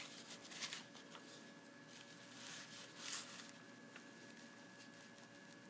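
A sheet of paper sliding and rustling over a wooden tabletop as it is laid down and smoothed flat by hand, in a few brief soft swishes during the first three seconds or so.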